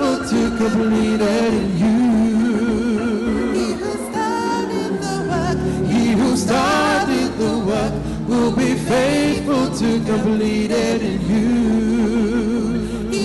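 Gospel vocal trio, two women and a man, singing into microphones with wavering, ornamented melody lines. A low backing part joins about five seconds in.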